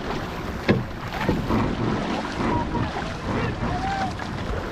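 Water rushing and splashing along the hull of a racing outrigger canoe under way, with sharp splashes as the paddle blades strike the water.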